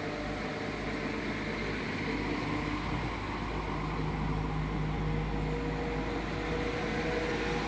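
Coupled Class 172 Turbostar diesel multiple units departing, their underfloor diesel engines running under power as the train pulls away. A steady engine drone whose note grows stronger about halfway through.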